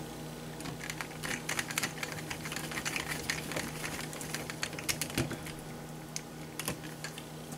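Many small, irregular clicks and taps of hand-tool work on an RC truck: a screwdriver working small screws and parts into the plastic and metal chassis. A steady low hum runs underneath.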